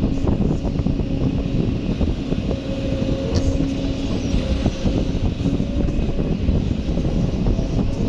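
Kobelco excavator's diesel engine running steadily under work, with a steady whine over it that shifts higher about halfway through and a scatter of small knocks.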